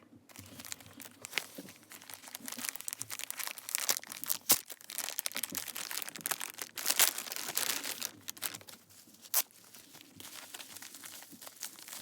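Packaging crinkling and rustling in irregular crackles, with sharp louder snaps about four and a half and seven seconds in, as a parcel is unwrapped.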